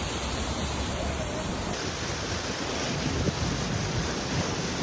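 Steady rush of floodwater with wind buffeting the microphone; the noise changes about two seconds in.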